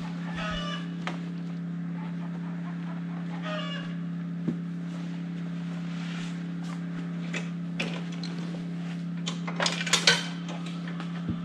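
Chickens clucking, with two short calls standing out, over a steady low hum. A brief clatter of handled gear comes near the end.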